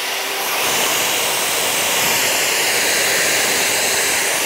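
Makita 5008MG circular saw's 1800 W motor running free with no blade fitted, on a test run after reassembly. A steady whir with a high rush of air, settling at full speed about a second in.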